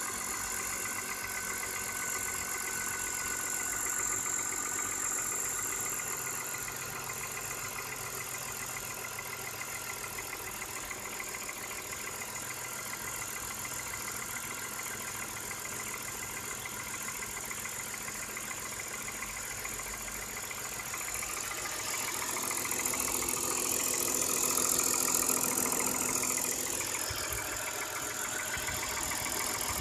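BMW E39's M54 straight-six idling after a cold start, with a fast, steady knocking or rattling whose cause the owner doesn't know. It grows louder for a few seconds about two-thirds of the way through.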